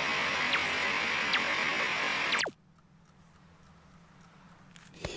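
A loud, steady hiss cuts off abruptly about two and a half seconds in with a quick falling sweep. Then it is almost quiet, with faint ticks and a sharp click near the end.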